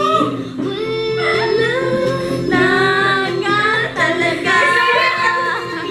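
Background pop song with a sung vocal melody over steady accompaniment, with a brief spoken exclamation near the end.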